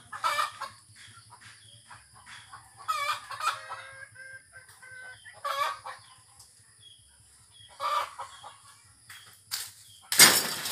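Chickens clucking and a rooster crowing in a series of separate calls, the loudest call near the end.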